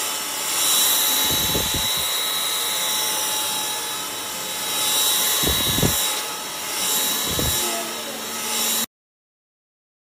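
Kadonio cordless stick vacuum running on a rug: a steady high motor whine over rushing air, swelling and dipping as the floor head is pushed back and forth, with a few low thuds. It cuts off suddenly near the end.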